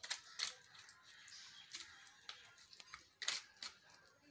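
Faint handling noises as chopped coriander is scattered by hand over a pan of kadhi: a few light clicks and rustles, the loudest a little after three seconds in.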